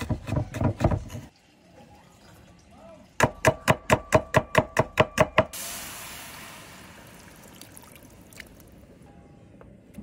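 A cleaver chops garlic on a bamboo cutting board in quick strokes for about a second. Then comes a second run of about a dozen sharp, ringing knocks, about five a second. After that, oil is poured into a nonstick frying pan with a splashing hiss that fades away.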